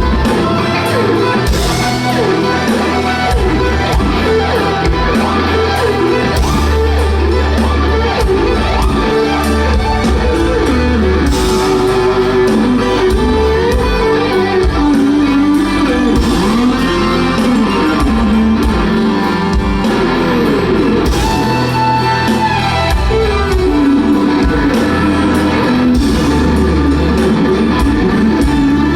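Live rock band playing loud, with a lead electric guitar whose notes slide and bend in pitch over bass and drums.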